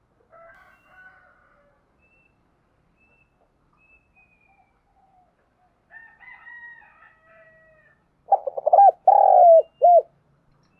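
Spotted dove cooing: near the end, a loud phrase of a few quick stuttering notes, then a longer arched coo and a short closing note, the territorial call of a male decoy bird meant to lure wild doves. Fainter calls of other birds come earlier.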